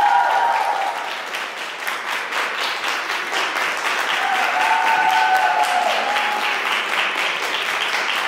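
Audience applauding steadily in a hall, with a held high tone rising over the clapping twice, at the start and again around five seconds in.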